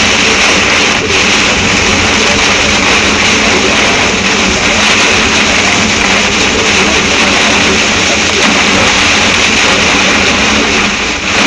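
Heavy storm downpour, a loud, steady, dense rush of rain pelting down without a break.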